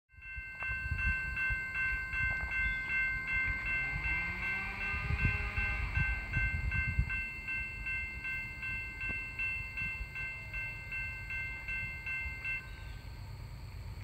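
Approaching CSX freight train heard before it comes into view: a low rumble with a locomotive horn sounding in the distance. A steady high ringing pulses about two and a half times a second and stops near the end.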